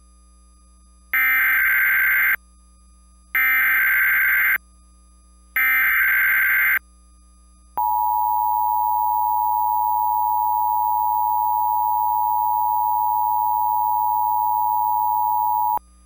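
Emergency Alert System tones on cable TV: three bursts of SAME header data, each about a second long, then the steady two-tone attention signal held for about eight seconds. Together they announce a tornado warning.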